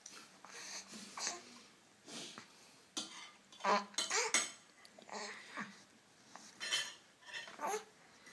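A young baby cooing and babbling in short, breathy bursts with a few squeals, about a dozen spread out, loudest about four seconds in.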